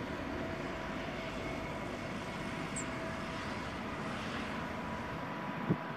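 Steady distant drone of twin WDG4 diesel locomotives working at full notch up a ghat gradient, an even rumble with faint steady tones running through it.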